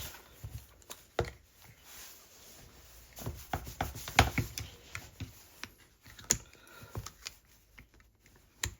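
Irregular sharp clicks and taps of prying tools working at the glued-down screen of a tablet, with a louder click about four seconds in.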